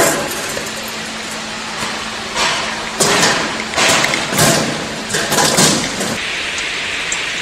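Stainless-steel sheet-metal cover panels being handled and set against a bucket elevator's steel frame: a series of thuds and knocks, clustered from about three to six seconds in, over a steady background hiss.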